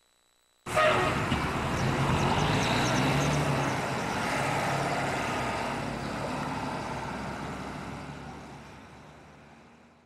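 A huge flock of birds taking off at once: a dense rush of wings with many chattering calls, starting abruptly and fading slowly over several seconds.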